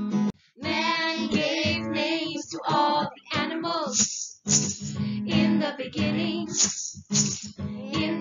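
Woman and child singing over strummed acoustic guitar, in short phrases with brief gaps between them.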